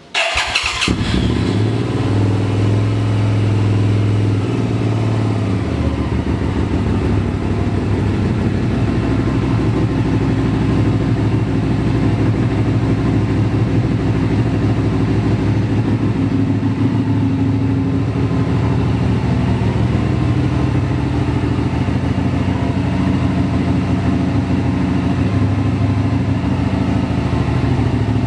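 A 2012 Hyosung GT650R's 650cc V-twin engine, breathing through a custom exhaust, starts right away and settles into a steady idle.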